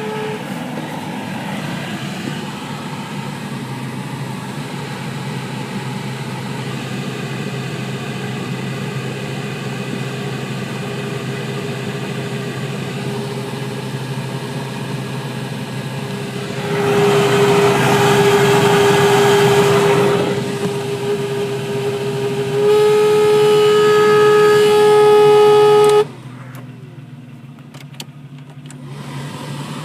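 Jeep Cherokee XJ air-conditioning system making a steady horn-like droning tone over the running engine. A loud rush of noise joins it for a few seconds past the middle, the tone grows louder, then it cuts out suddenly and returns near the end. The noise is caused by an overfilled refrigerant charge.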